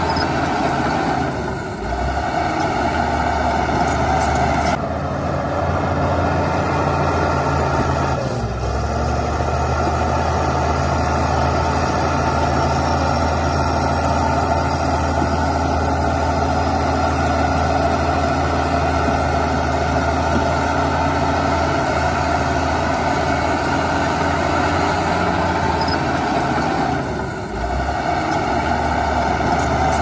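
Heavy diesel engine of earthmoving machinery running steadily at working revs, its note briefly dipping and shifting a few times.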